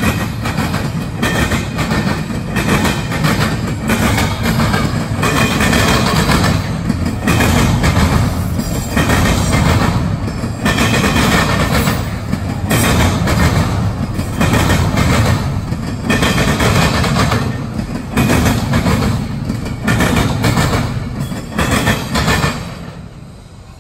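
Norfolk Southern double-stack intermodal train's well cars rolling past, the wheels clacking over the rails in a quick, uneven rhythm. The noise falls away sharply near the end as the last car passes.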